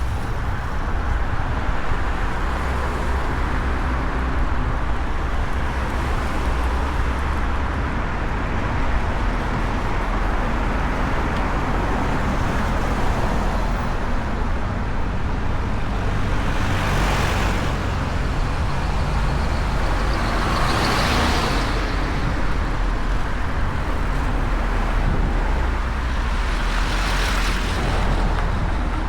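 Road traffic: a steady rumble of passing and distant vehicles, with three cars swishing past close by, a little over halfway through and twice more near the end.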